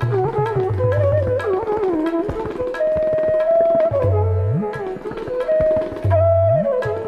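Indian classical-style background music: tabla strokes, some low ones bending upward in pitch, under a melody that slides between notes and holds some for about a second.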